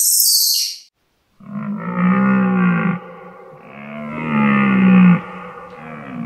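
A high chirping fades out within the first second. Then an animal gives a low, drawn-out call with a rich stack of harmonics, twice, each over a second long, followed by a fainter third call near the end.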